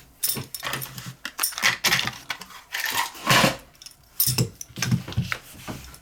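Small metal objects clinking and rattling as they are handled, in irregular clusters of sharp clicks.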